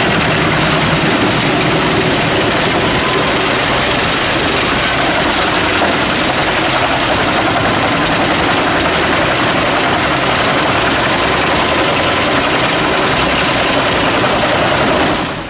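Pezzolato PTH 900G drum chipper, driven from the PTO of a John Deere R6215 tractor, running steadily and loudly as it chips wood, with the tractor engine running beneath. It cuts off abruptly at the end.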